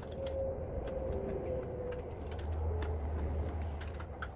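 A low vehicle rumble that swells about two and a half seconds in and then fades, like a vehicle passing. Scattered light clicks come from a wrench tightening the mower's oil drain plug.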